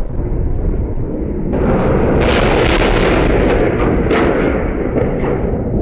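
Wind buffeting a phone microphone on an open ship deck: a loud, even rushing noise with no clear tones, which grows louder and brighter about a second and a half in.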